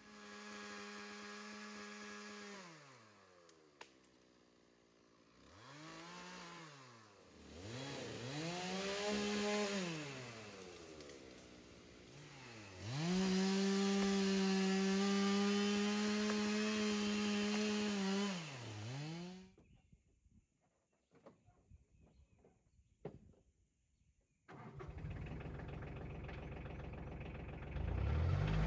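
Two-stroke chainsaw revving up and falling back in a series of short cuts through saplings, then held at full throttle for about five seconds before it cuts off. After a few seconds of near quiet with scattered clicks, a tractor engine runs steadily, and it gets louder just before the end.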